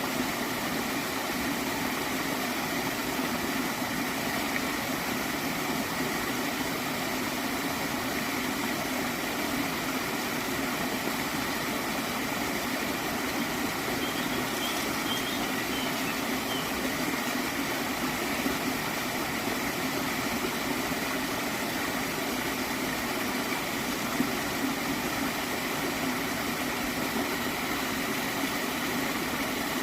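Gently flowing stream of water gurgling steadily.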